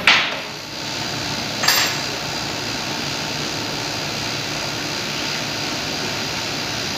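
Steel injection-mold plates clanking: a sharp metallic strike right at the start and a second one about a second and a half later as the pried-apart plates shift. After that only a steady workshop hum and hiss.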